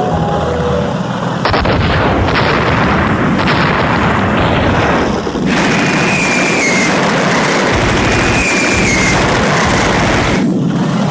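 War sound effects on a soundtrack: dense gunfire and explosions, loud throughout, with a high whistling tone that holds and then dips slightly, heard twice around the middle.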